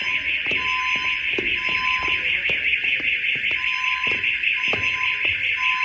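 School fire alarm going off, loud: a steady harsh horn tone, with a short lower beep repeating about once a second and sharp ticks about twice a second.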